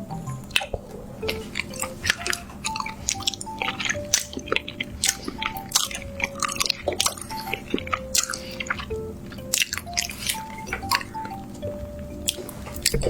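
Background music with a simple plucked-style melody, over close-up wet clicks and smacks of someone chewing food.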